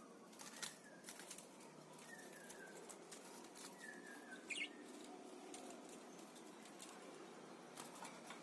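Parakeets moving about, with soft wing flutters and scattered light clicks, and a few faint chirps, one sharper and higher about four and a half seconds in.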